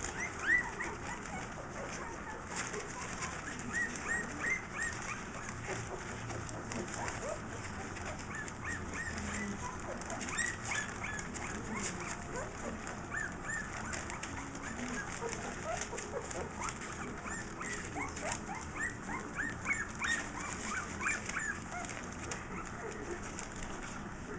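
Twelve-day-old Scottish terrier puppies squeaking and whimpering: many short, high, rising squeaks, scattered and overlapping.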